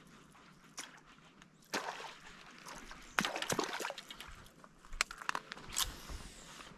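Scattered sharp clicks, knocks and rustles from fishing rod and reel handling at the water's edge, about six separate knocks.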